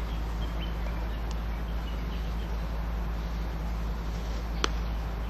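Steady hum of a quadcopter drone's propellers over a deep rumble, with one sharp click about four and a half seconds in.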